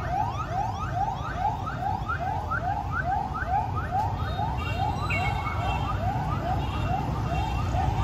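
Electronic siren sounding in fast, repeated rising whoops, about two a second, over a low rumble of traffic.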